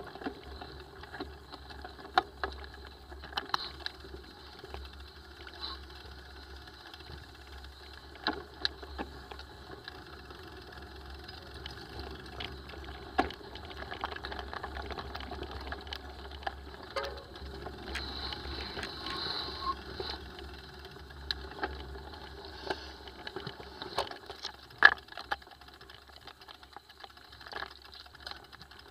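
Mountain bike rolling over a rough dirt singletrack: continuous rattling from the bike with frequent sharp knocks as it hits stones and bumps, the loudest near the end.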